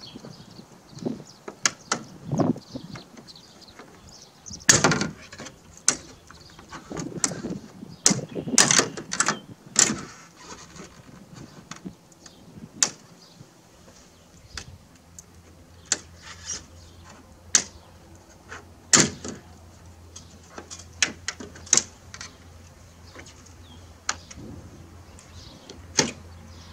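Plastic trim tools prying the chrome trim cover off a 2016 Ford Explorer's factory roof rack: a series of sharp clicks and snaps as the retaining clips pop loose, with scraping and rubbing of the trim in between.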